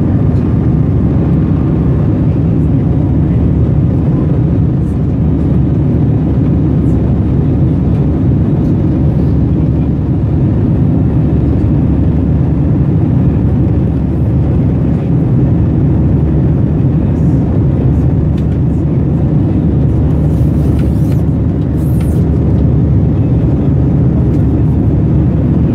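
Jet airliner cabin noise heard from a window seat during the climb after takeoff: the engines and rushing airflow make a steady, loud low rumble. A few faint brief rustles come near the end.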